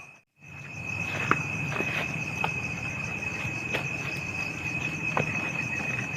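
Night-time insect chorus: one steady high trill with a faster pulsing chirr above it, over a soft noisy background. Scattered light clicks and knocks come through, and the sound drops out for a moment just after the start.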